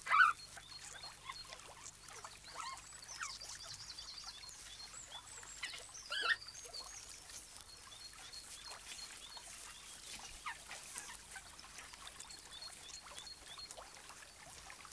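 Newborn European otter cubs giving faint, high-pitched squeaks while nuzzling and suckling at their mother, with a louder squeak about six seconds in.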